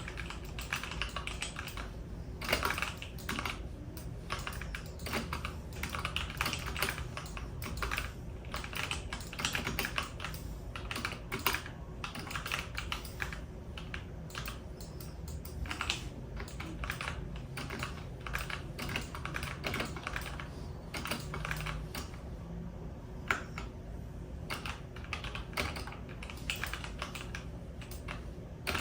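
Typing on a computer keyboard: quick runs of key clicks broken by short pauses, over a faint low hum.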